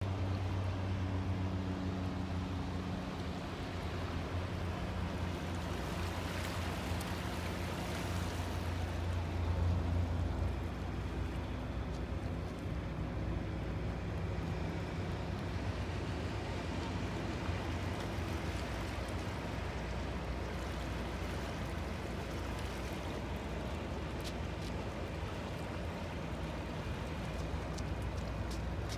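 Motor yacht's engines running as it cruises past, a low steady drone, with an even wash of water noise underneath.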